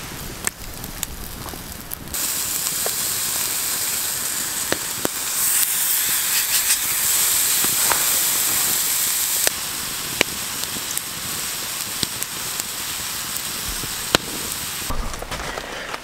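Wood campfire crackling, then from about two seconds in a loud, steady sizzle of bacon rashers frying in a cast iron pan over the embers, with frequent pops of spitting fat. The sizzle eases a little near the end.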